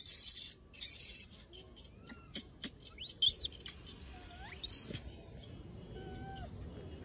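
Macaque giving a shrill, wavering squeal that cuts off about half a second in, then a second shorter squeal, followed by a few faint short chirps and clicks.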